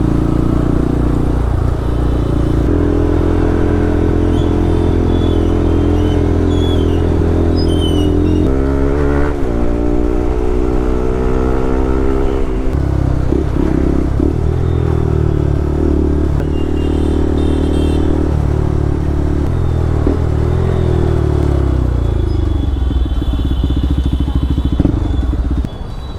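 Modified Bajaj Pulsar RS200's single-cylinder engine running loud through an aftermarket Akrapovic full-system exhaust while riding. It holds steady revs, then the revs rise and fall about a third of the way in, and the pitch changes several more times. The sound drops off near the end.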